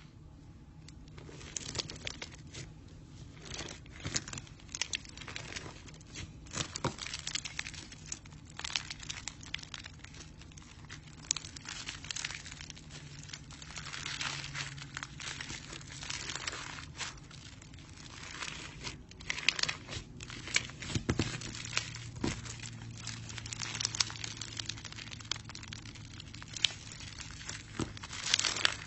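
Crunchy slime being squeezed and worked by hand, giving a dense, irregular crackling with sharp pops and crunches.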